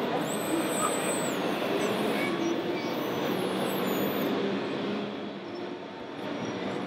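Small electric motors of a radio-controlled model timber truck whining, gliding up and down in pitch, over a steady rushing background.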